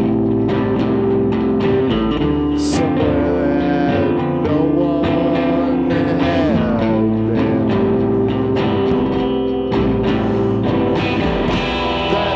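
Live amplified guitar music played through effects pedals: sustained chords over a steady picked rhythm, with gliding higher notes.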